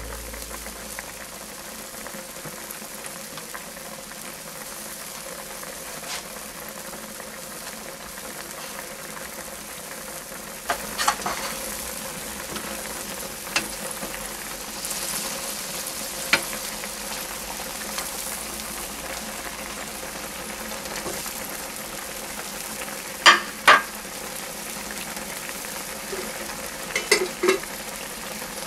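Egg-battered fish fillets braising in broth in a pan, the sauce bubbling and sizzling steadily. A few sharp knocks and scrapes of a cooking utensil against the pan, the loudest two about two-thirds of the way through and a cluster near the end.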